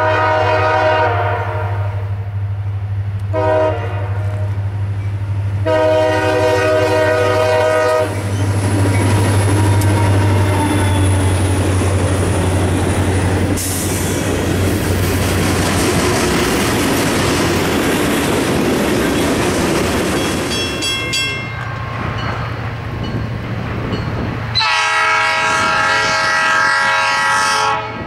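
Diesel freight locomotive horn sounding three blasts, the last one long, over a steady engine hum. The CSX locomotives then pass close by, and a long string of freight cars rolls past with clickety-clack and brief wheel ringing. Near the end, after a cut, a Norfolk Southern diesel locomotive sounds one long horn blast.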